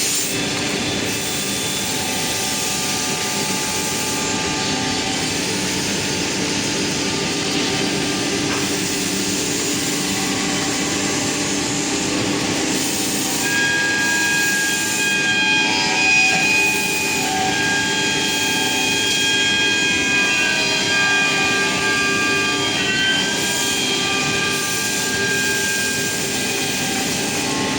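Industrial panel-handling machinery running steadily: a continuous hiss and hum, with high thin squealing tones coming and going from about halfway through.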